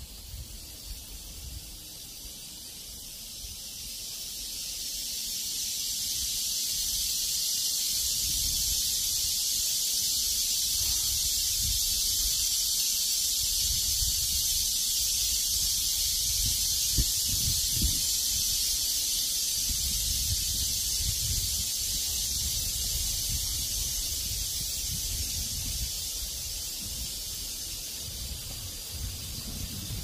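Cicadas singing in a dense, shrill chorus that swells over the first several seconds and then holds steady, with wind buffeting the microphone in low rumbles.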